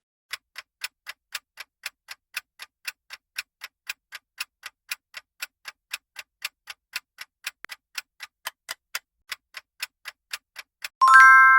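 Countdown timer sound effect: clock-like ticking at about four ticks a second, ending near the end in a loud bright chime of several held tones that marks time up.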